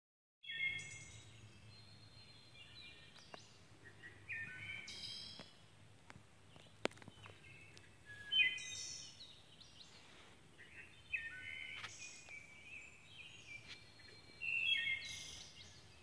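Songbird singing outdoors: short, quick multi-note phrases repeated about every three to four seconds. A few sharp clicks fall between the phrases.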